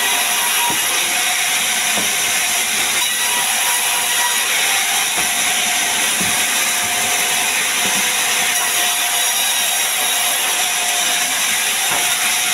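Vertical log band saw running and cutting logs: a steady, loud hiss with a faint whine, stronger in the second half, and a few light knocks.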